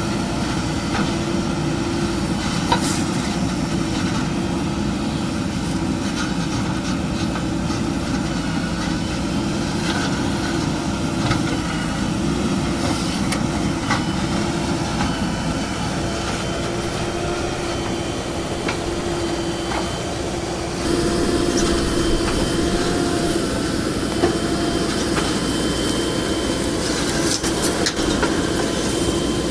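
Heavy diesel engine running steadily with a held drone, scattered with light knocks and clanks; it gets louder about two-thirds of the way through, as if taking on more load or revs.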